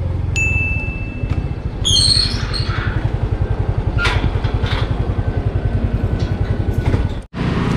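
Motor scooter's small engine idling with an even low putter while stopped, with a steady high tone for about a second and a half near the start and a brief squeak around two seconds in. The sound cuts out for a moment near the end.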